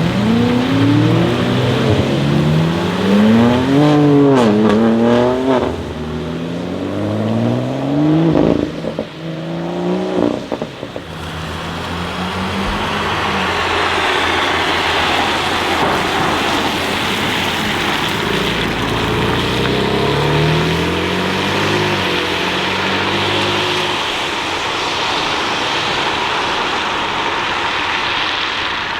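BMW M3 G80 Competition's twin-turbo straight-six, through an R44 Performance aftermarket exhaust, revved several times with the pitch climbing and dropping, and a few sharp crackles around the ninth and tenth seconds. From about eleven seconds the engine sinks under a steady rush of noise, with another rising pull about two-thirds of the way through, fading near the end.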